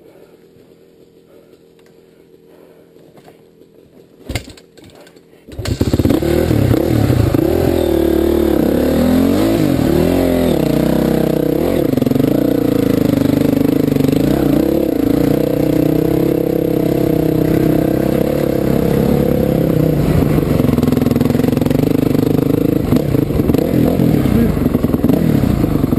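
Enduro dirt bike engine, silent at first, then starting about five seconds in after a short knock. It runs loud from then on, its pitch rising and falling with the throttle as the bike climbs a rough trail.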